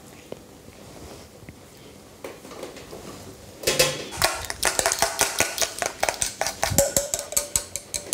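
A metal utensil scraping and clicking against a metal mixing bowl as the custard is poured out of it. It starts quietly and becomes a quick run of sharp clicks and knocks with a little metallic ringing from about halfway through.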